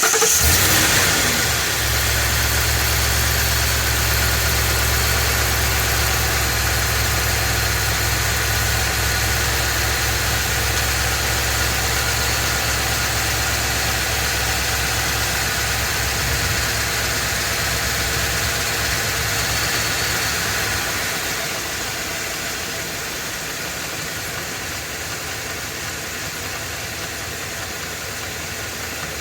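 Ford 7.3-litre Godzilla gasoline V8 running just after start-up with its serpentine belt off, so the accessories are not driving. It is being checked for an abnormal internal engine noise that stays with the belt removed, a fault later blamed on the oil pump and bad enough to need a new engine. The engine runs steadily, then gets quieter about two-thirds of the way through.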